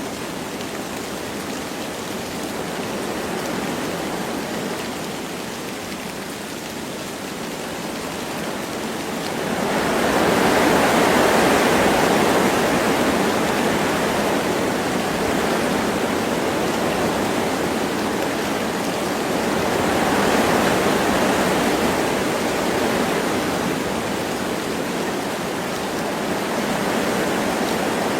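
Wind blowing through forest trees with light rain: a steady rushing that grows louder in a gust about a third of the way in and swells again about two-thirds through.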